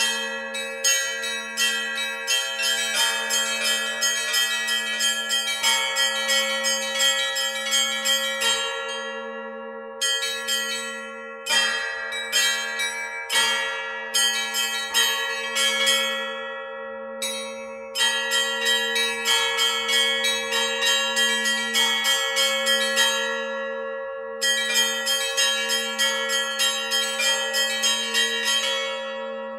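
Russian church bell ringing (zvon) on a monastery belfry of 13 bells, in the Novodevichy Monastery ringing tradition. Rapid patterned strikes of the small chiming bells run over the steady hum of larger bells. The small bells break off briefly several times while the lower bells keep sounding.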